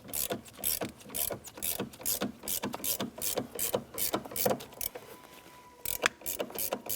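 Ratcheting wrench clicking as it turns the screw of a door hinge spring compressor, backing the tool off to release the spring. About four clicks a second, with a short pause about five seconds in.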